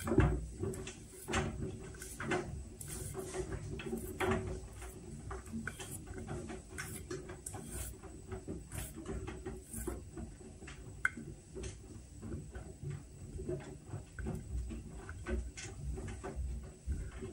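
Whirlpool washing machine running its Steam Refresh cycle: a steady low hum with many irregular clicks and knocks throughout.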